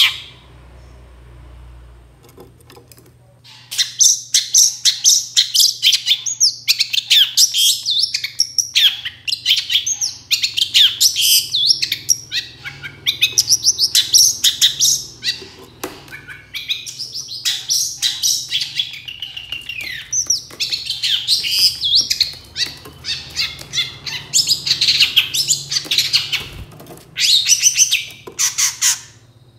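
Long-tailed shrike (cendet) singing a long, vigorous run of rapid, high chattering notes. The song starts a few seconds in and has short breaks around the middle.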